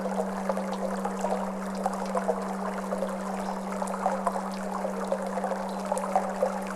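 Flowing water trickling and babbling, over a steady low hum from a Tibetan singing bowl.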